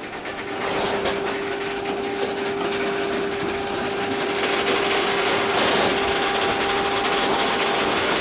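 WAP-4 electric locomotive hauling a passenger train on the approach, its wheel and rail noise growing slowly louder, with a steady tone running underneath.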